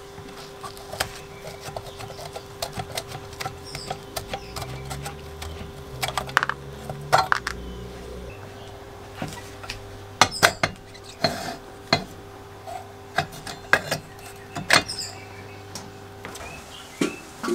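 Hand tools and steel parts clicking and clinking in irregular strikes as a rusty nut and bolt are undone from a vintage lawn mower's handle bracket, over a faint steady hum.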